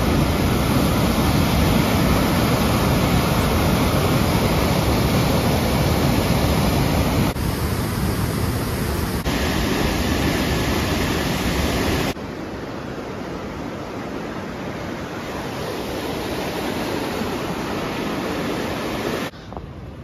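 Steady, loud rush of falling water from the cascades of Tahquamenon Falls' lower falls. Its level and tone jump abruptly several times.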